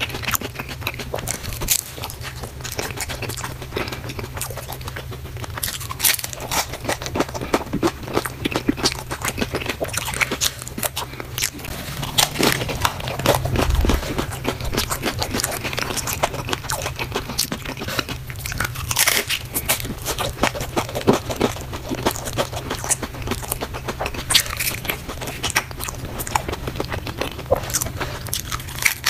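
Close-up crunching and chewing of hard-shell tacos, the crisp shells cracking between the teeth in many quick, irregular crunches, over a low steady hum.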